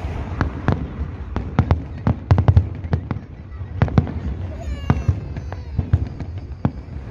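Fireworks display: aerial shells bursting overhead, giving many sharp bangs and crackles in quick, irregular succession.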